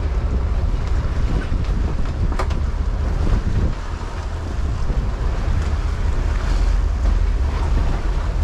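Sportfishing boat's engines running with a steady low rumble, water rushing around the stern, and wind buffeting the microphone.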